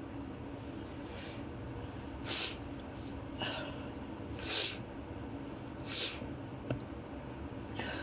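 A person sneezing over and over: about five short, hissy sneezes with little voice in them, one every one to two seconds. Three of them are louder than the others.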